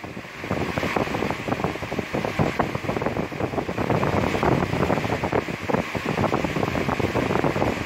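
Steady rushing air noise with rapid irregular buffeting, like a fan's or wind's airflow hitting the microphone.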